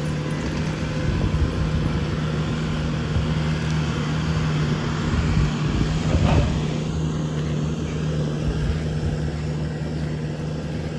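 Bobcat T770 skid steer's diesel engine running steadily at a constant speed, with a brief louder swell about six seconds in.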